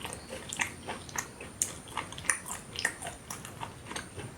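Close-miked chewing of a tortilla wrap filled with spicy beef rendang: a run of short mouth clicks and smacks, about two or three a second.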